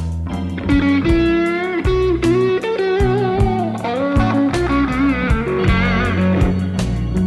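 Background music led by electric guitar, with bass and a steady drum beat.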